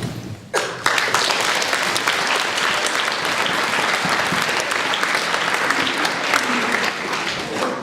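Large audience clapping, the applause starting about half a second in and going on steadily.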